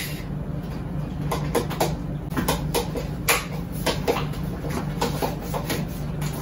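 A fork clicking and scraping against a bowl in quick, uneven strokes as eggs are beaten by hand, over a low steady hum.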